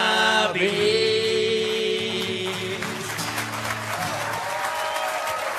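A man sings the long held last note of a song in German, with live accompaniment. About three seconds in, the studio audience starts clapping and the applause carries on to the end.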